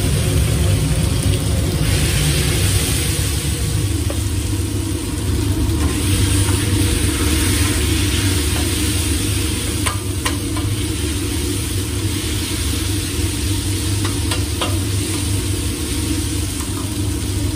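Sliced sausage and onions sizzling in oil on a steel flat-top griddle, stirred and spread by hand, over a steady low hum. A few light clicks come near the middle.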